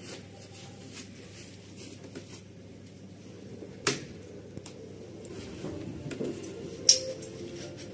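Quiet room background with light handling noises and two sharp clicks, about four and seven seconds in.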